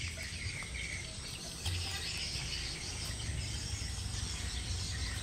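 Outdoor ambience: steady high-pitched insect chirping over a constant low rumble.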